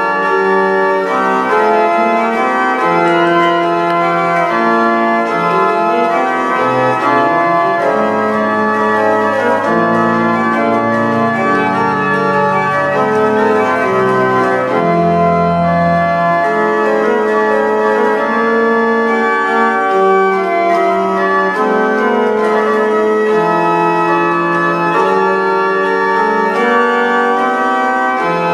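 Organ music: slow, sustained chords of held notes that change gradually, with a deep bass note entering about halfway through.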